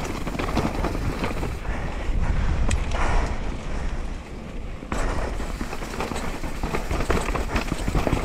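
Downhill mountain bike riding fast over a rough trail: tyres on dirt and rock, with the chain and frame rattling and wind buffeting the microphone. The noise drops briefly about four seconds in, then picks up again.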